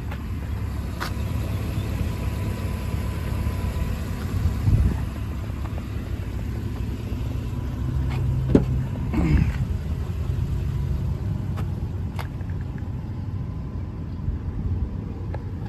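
Chevrolet Silverado 3500HD's 6.0-litre gas V8 running steadily, with a few scattered clicks and knocks over it.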